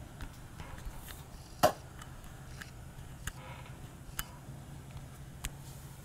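Low steady hum with scattered small clicks and ticks, and one sharp click about one and a half seconds in.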